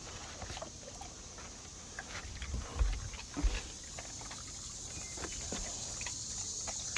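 A dog bobbing for ice cubes in water: splashing and snuffling with small clicks, and two louder low thumps near the middle.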